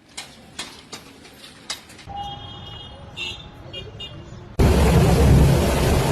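A few sharp clicks, then traffic noise with short horn toots, then a sudden loud rushing noise about four and a half seconds in.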